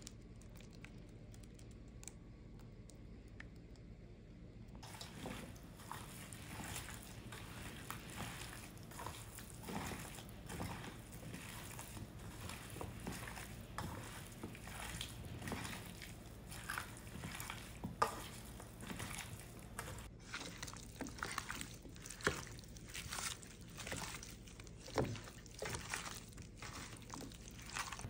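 Gloved hand tossing raw beef cubes, onion, potato and carrot chunks in an oily paprika sauce in a stainless steel pot: wet squishing with small irregular knocks and clatters of pieces against each other and the pot. The first few seconds are nearly quiet before the mixing starts.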